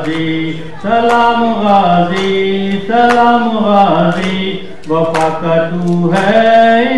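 A man's solo voice chanting a Muharram lament unaccompanied, in long held melodic phrases about two seconds each that rise and fall, with brief breaths between them.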